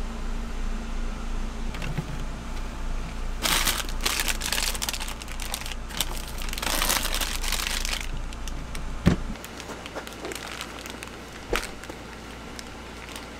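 Plastic food packaging crinkling and rustling in two spells as packs are loaded into a portable fridge-freezer, over a steady low hum. A sharp thump about nine seconds in, after which the hum stops, and a softer knock a little later.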